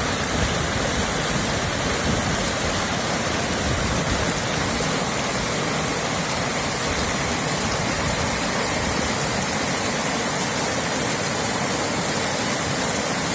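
Steady, even rushing of flowing stream water.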